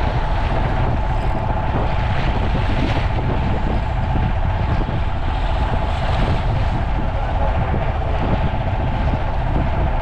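Fishing boat's engine running steadily, with wind buffeting the microphone and water noise around the hull.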